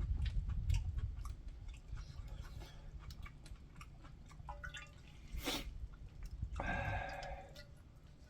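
Eating ramen noodles: chewing and slurping with scattered small clicks, a sharp click about five and a half seconds in, and a short pitched voice-like sound shortly after.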